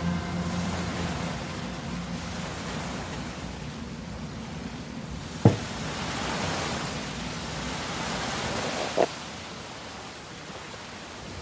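Steady hiss as music fades out in the first second or so, then a sharp knock about five and a half seconds in as the steel axe head is laid down on the wooden board, and a second, smaller knock about three and a half seconds later.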